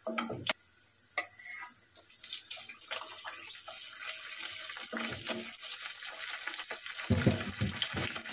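Chopped anchovies frying in a non-stick pan with a steady hiss, stirred and scraped with a wooden spatula, which gives scattered clicks and taps. A few louder knocks come near the end.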